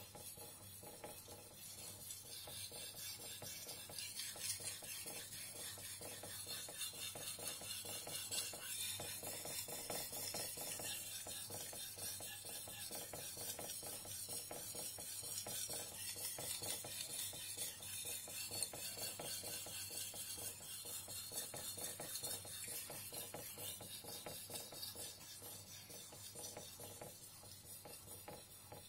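Knife blade of a Shirogami #1 steel gyuto scraping back and forth on a wet whetstone, a steady run of sharpening strokes with no break.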